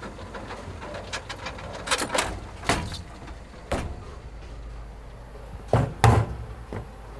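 A string of knocks and clicks, the two loudest close together near the end, over a steady low hum.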